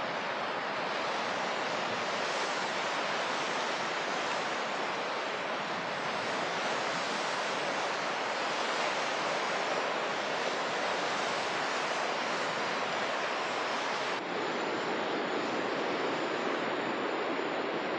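Sea surf breaking and washing onto the beach, a steady rush of waves. About fourteen seconds in there is a brief dip and the sound shifts slightly, as the recording changes to another stretch of shore.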